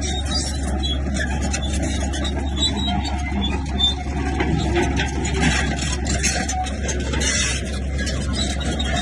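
Bulldozer working: its diesel engine runs steadily under load, with irregular rattling over it.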